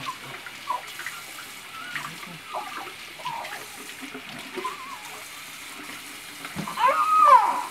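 Newborn baby fussing with small squeaks over a steady hiss like running water, then breaking into a loud wailing cry near the end, its pitch rising and falling.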